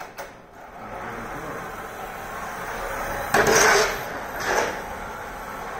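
FRC swerve drive robot chassis driving on a concrete floor: its drive motors and swerve modules running with wheel noise. A louder noisy burst lasts about half a second starting around three and a half seconds in, with a shorter one about a second later.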